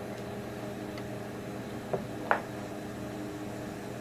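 Two sharp clicks about half a second apart, the second louder, as small parts of the mini lathe's apron are handled during reassembly, over a steady low hum.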